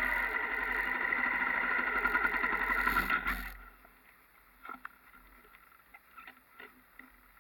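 Enduro dirt bike engine running steadily, then cutting off sharply about three and a half seconds in, leaving a few faint scattered ticks.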